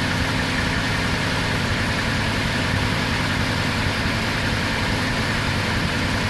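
A Land Rover Discovery 3's Jaguar 4.4-litre V8 idling steadily, with no knocking.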